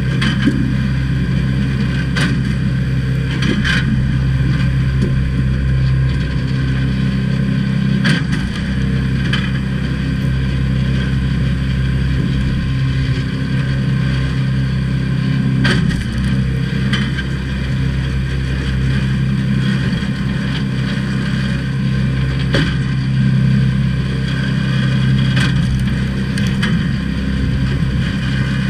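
Supersplit kinetic log splitter's small gas engine running steadily, with sharp cracks and clacks at intervals as logs are split and the pieces drop.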